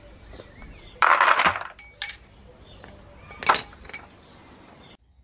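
Metal objects clinking: a short rattling clatter about a second in, then sharp metallic clinks that ring briefly, one near two seconds and a louder one a second and a half later. The sound cuts off suddenly near the end.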